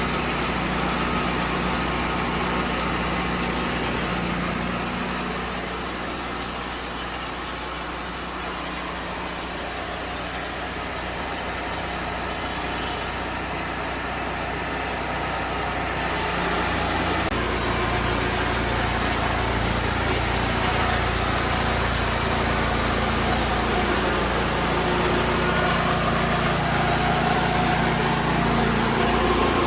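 A sawmill's engine running steadily, quieter for a while and then louder again from about halfway through.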